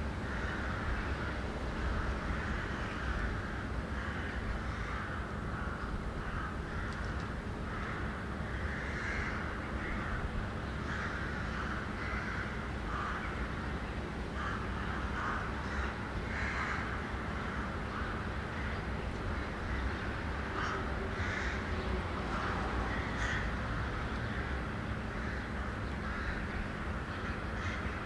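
Wind and road noise on a camera carried by a moving vehicle: a steady low rumble under a rough, fluttering hiss that never lets up.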